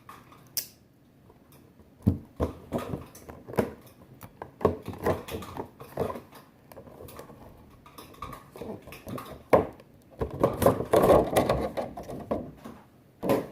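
Cardboard toy packaging being handled and opened: irregular scrapes, taps and knocks, with a longer stretch of rustling about ten seconds in.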